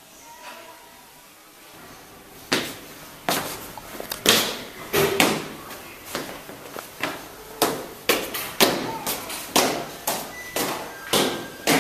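Hurried footsteps on stairs: a run of sharp thuds, about two a second, starting a couple of seconds in.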